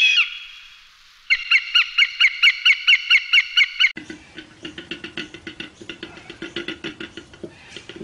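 A hawk calls: one short scream, then a fast run of about a dozen sharp notes, roughly five a second. After an abrupt cut, a koala bellows, a rhythmic series of deep snoring, belching grunts.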